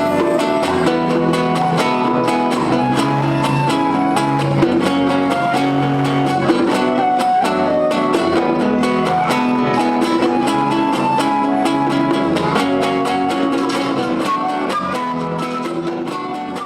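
Son cubano band music led by plucked guitar over a bass line and steady percussion, beginning to fade out near the end.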